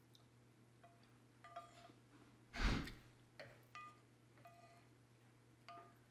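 Faint, short chime-like tones, six or so spaced irregularly about a second apart, over a low steady hum, with one louder brief rush of noise about two and a half seconds in.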